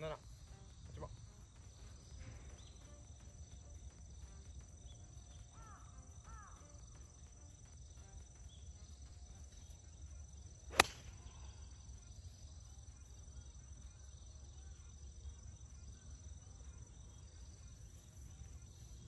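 A Srixon Z565 8-iron striking a golf ball on a full approach shot: one sharp, loud click about eleven seconds in, over a low steady outdoor background.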